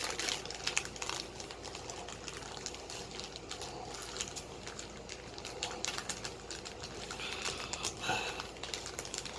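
Packaging being handled: irregular light clicks and crinkles of plastic and card, with a brief louder crinkle about eight seconds in.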